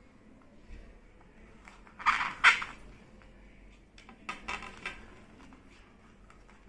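Knife sawing through the crisp, pan-toasted crust of a cheese sandwich on a plate: two short spells of crunching and crackling, about two seconds in and again around four and a half seconds, with light clinks of the blade against the plate.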